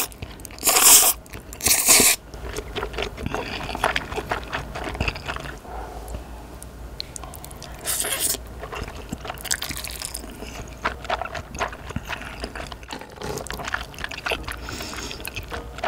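Close-miked slurping and chewing of Carbo Buldak creamy spicy fried noodles. Three loud slurps come in quick succession at the start, then more about 8 s in, near 9.5 s and near the end, with steady wet chewing between them.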